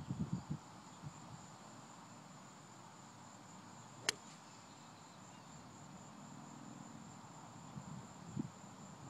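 Insects buzzing in a steady thin high drone, with one sharp click about four seconds in.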